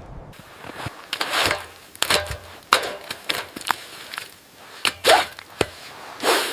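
A run of irregular crunching knocks and short scrapes, a dozen or so, the loudest just after five seconds in.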